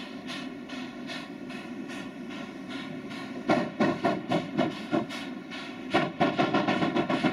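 JS 2-8-2 steam locomotive struggling to start a heavy coal train, its exhaust beating steadily under the hiss of steam. Twice the beats race into a loud quick flurry of about six a second, each lasting a second or so, as the driving wheels slip and the driver coaxes the engine away.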